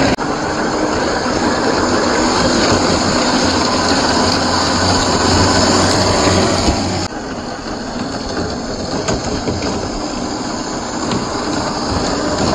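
Scale RC crawler driving off-road: its 540 45T brushed motor and gear drivetrain running, with tyres churning through muddy water. About seven seconds in, the sound drops and dulls as the truck rolls over sand.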